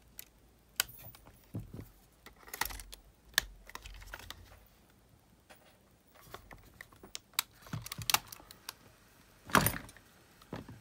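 Light plastic clicks and taps from handling a Sony WM-GX822 cassette Walkman: its hinged battery door being worked and its buttons pressed, with one louder click near the end.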